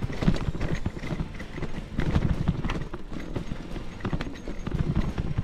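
Mountain bike clattering over a stony trail, a dense, irregular run of knocks, rattles and thumps.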